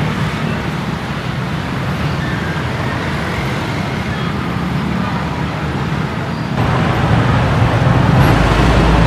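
Street traffic running past, with a steady engine hum that grows louder about six and a half seconds in as a vehicle comes closer.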